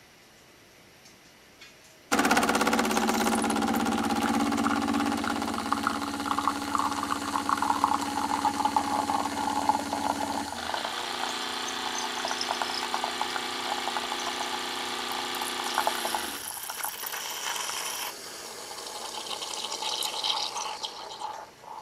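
Braun Tassimo pod coffee machine brewing: its pump starts suddenly about two seconds in and runs with a loud, steady hum, changing tone about halfway as coffee runs into the glass. The pump stops about three-quarters of the way through, and a hiss then builds for a few seconds as the brew cycle finishes.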